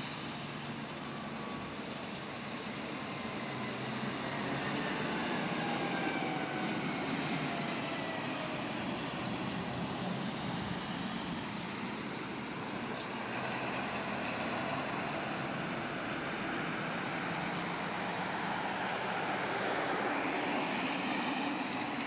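Waterfall rushing steadily, an even roar of falling water. Through the first half a faint tone slides slowly down in pitch.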